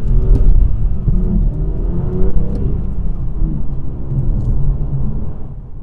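BMW M2's turbocharged straight-six engine under hard acceleration, the revs rising and falling with a deep rumbling exhaust note.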